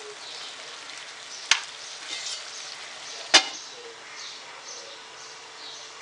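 Masala with curd sizzling and crackling in a frying pan. Two sharp metal clinks sound about two seconds apart, the spoon and then the steel lid striking the pan; the second, as the lid goes on, is the louder. A faint steady tone starts after the lid is on.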